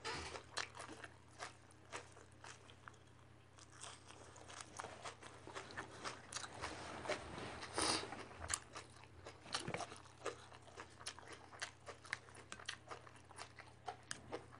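A person biting and chewing crunchy raw vegetables close to the microphone, in irregular crunches, with the loudest bite about eight seconds in.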